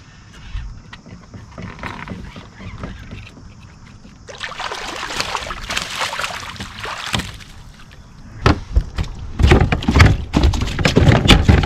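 Water splashing hard about four seconds in, then a run of loud knocks and thumps against a kayak from about eight and a half seconds: a hooked smallmouth bass being landed and thrashing.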